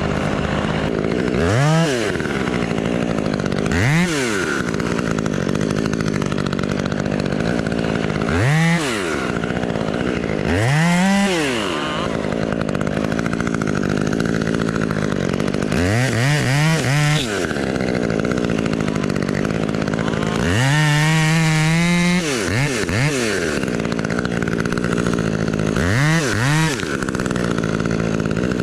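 Chainsaw engine idling steadily and revved up briefly about eight times. Each rev rises and falls back to idle within a second or so, and one longer, held rev comes about two thirds of the way through.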